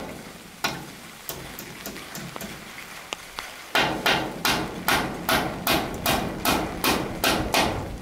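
Hammer driving nails into wooden boards: two single blows early on, then after a pause a steady run of about ten sharp blows, roughly two and a half a second.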